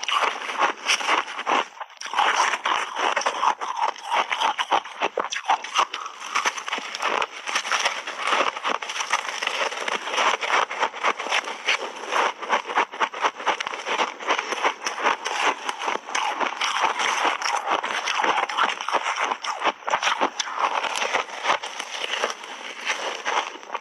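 Shaved ice coated in matcha powder crunched between the teeth in big mouthfuls, close to the microphone: a dense, continuous run of crackling crunches.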